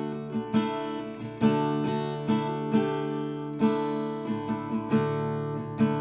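Solo acoustic guitar, strummed by hand: ringing chords with a sharp strum accent roughly once a second.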